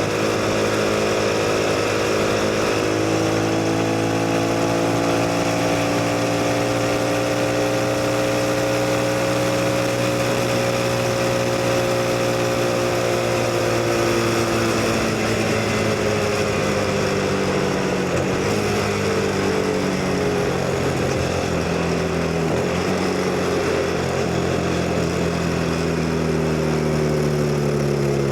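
CF Moto NK 250's single-cylinder engine running under way, its pitch holding steady and then dropping slowly through the second half as the revs ease off, with wind and road noise.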